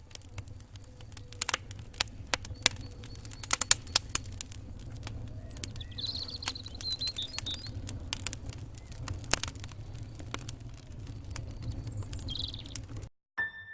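Outdoor bird sounds: small birds chirping, with a short warbling call about six seconds in and another near the end, over scattered sharp clicks and taps and a steady low rumble. It all cuts off suddenly near the end.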